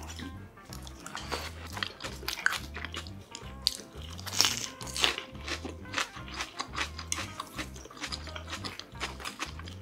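Close-miked eating: bites and chewing of spicy buldak food, with many short wet mouth clicks. Background music with a repeating bass line runs underneath.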